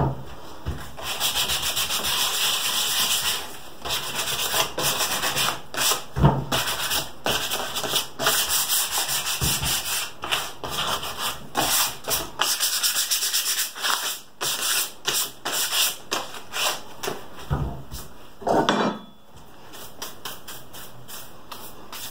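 A small wooden piece sanded by hand with 150-grit sandpaper: repeated back-and-forth rubbing strokes, which die away near the end.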